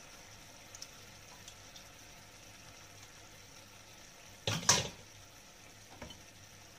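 A pan of pork and enoki mushrooms sizzling faintly. Cooking tongs clatter loudly against the pan about four and a half seconds in, with a few small ticks around it.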